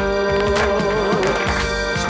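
Folk band playing an instrumental passage: a clarinet leads an ornamented melody over accordion and violin. Sharp claps keep a steady beat of about one every 0.6 seconds.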